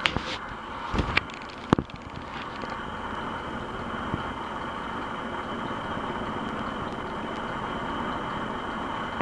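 Ceiling fan running on high: a steady rush of air with a faint, steady whine coming in about two and a half seconds in. A few light knocks in the first two seconds.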